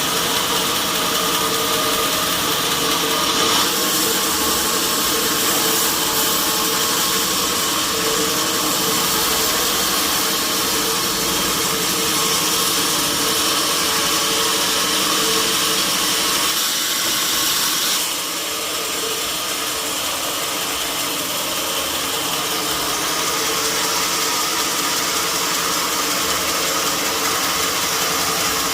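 Sawmill machinery running steadily: a log saw and its motor, a dense mechanical noise with a steady hum. The sound changes character about three and a half seconds in and turns a little quieter about eighteen seconds in.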